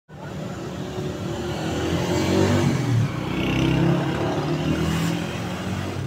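A motor vehicle's engine running and revving, shifting up and down in pitch and loudest in the middle.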